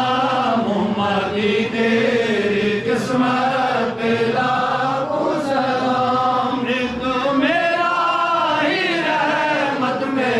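Chanted vocal music: voices chanting in long, drawn-out melodic lines that rise and fall without a break.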